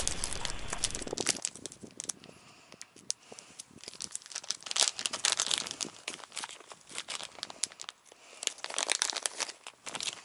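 Plastic lure packaging crinkling and crackling as it is handled and pulled open by hand, in quick irregular bursts.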